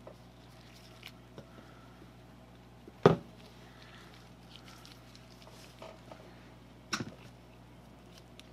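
Two sharp knocks from handling a steel ball screw and ball nut on a workbench: a loud one about three seconds in and a softer one near seven seconds, with a few faint ticks between. A low steady hum runs underneath.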